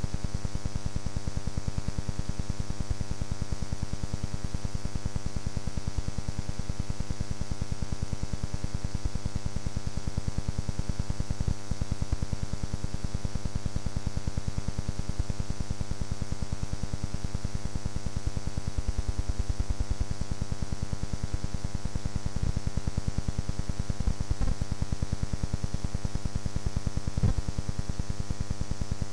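Steady electrical hum and buzz with hiss, unchanging throughout: recording noise on the old home-video soundtrack rather than any sound from the track.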